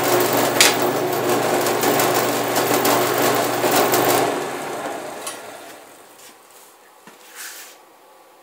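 Excalibur II scroll saw running steadily with a fast ticking from the blade stroke. It is switched off about four seconds in and winds down to a stop over a second or two.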